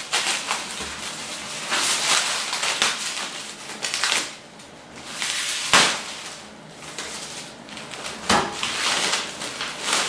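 Plastic mailing wrap and packing tape being torn and crinkled off a parcel, in irregular rustling rips, with two sharper cracks about six and eight seconds in.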